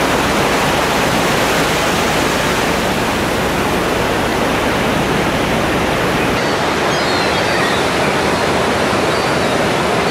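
Ocean surf breaking and washing up a sandy beach: a steady rushing noise. Its deep rumble drops away about six seconds in.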